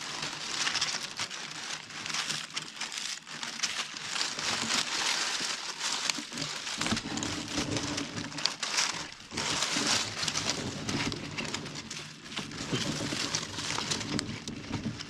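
Dry grass stalks and leaves rustling and crackling as a hand rearranges and presses them down over a baited rat trap to hide it.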